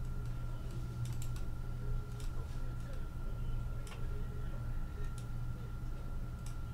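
Computer keyboard and mouse clicking in irregular, scattered clicks, over a steady low electrical hum and a thin steady high whine.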